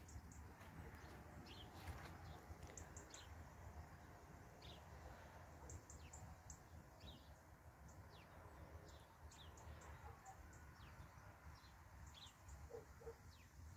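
Faint birds chirping: short, high calls, many of them sliding downward, scattered throughout over a low, steady background rumble.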